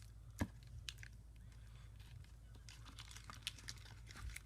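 Sticky slime being rubbed and peeled off hands: a scatter of small wet clicks and crackles, with one sharper click about half a second in.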